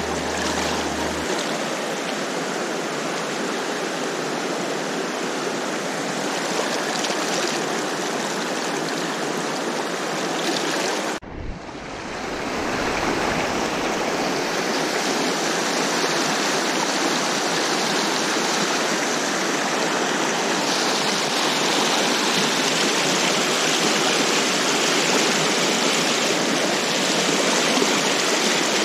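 River water rushing in a steady, even stream. It cuts out suddenly for a moment about eleven seconds in, then comes back.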